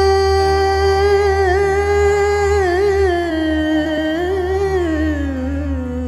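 Male voice holding a long wordless vowel in a Hindi bhajan, with veena accompaniment. About a second in, the held note breaks into wavering ornaments and steps down to a lower note, where it settles near the end, over a low steady drone.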